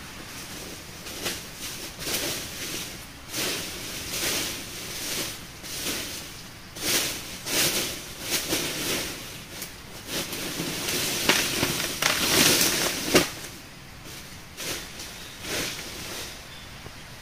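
Dry leaf litter and twigs crunching and rustling in irregular bursts, with sharp snaps among them, as a person moves and works on the forest floor. Busiest and loudest past the middle, ending in one sharp crack.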